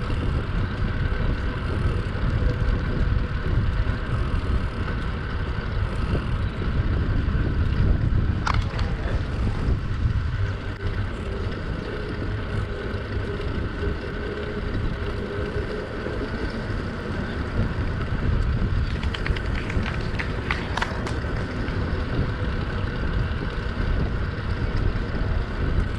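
Steady low rumble of wind and travel noise on a camera moving along a road, with a sharp click about a third of the way in and a short run of clicks about three-quarters through.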